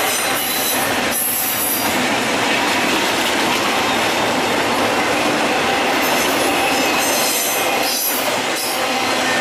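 Freight train of empty intermodal well cars and flatcars rolling past, its steel wheels running steadily over the rails with a faint, steady wheel squeal.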